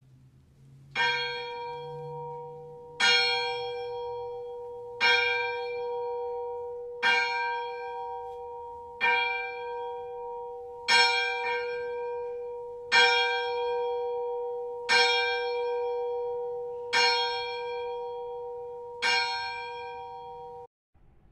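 A single church bell tolling, ten strokes about two seconds apart, each at the same pitch and ringing on until the next. The ringing cuts off suddenly near the end.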